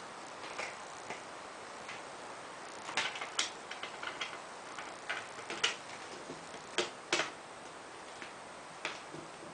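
Parts of a solar panel kit being handled and fitted together: irregular clicks and light knocks, with several sharper ones in the middle.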